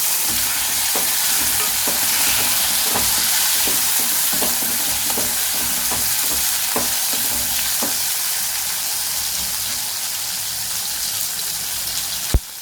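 Garlic and small onions sizzling in hot oil in a kadai, stirred with a spatula that ticks against the pan now and then. A sharp knock near the end, after which the sizzle is much quieter.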